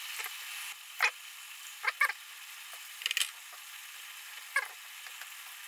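A pot of shabu-shabu broth simmering on a burner with a steady hiss. A few short clicks and pops come through it, about one a second.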